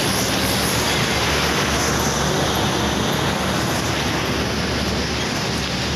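Heavy trucks passing close by at speed: a steady rumble of engines and tyre noise on the road.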